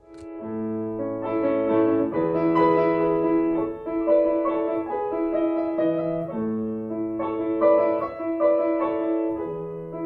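Background piano music: a slow phrase of sustained chords over low bass notes, repeating about six seconds in.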